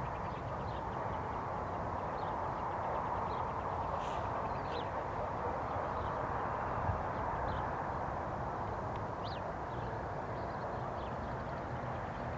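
Diesel freight locomotive running as the train approaches slowly, a steady low rumble, with birds giving short chirps over it several times.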